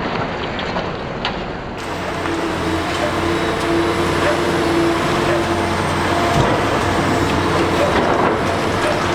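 Liebherr R 960 demolition excavator's diesel engine running steadily with a hydraulic whine, over a dense, rough noise of demolition work. The sound shifts abruptly about two seconds in, after which the engine note and whine stand out clearly.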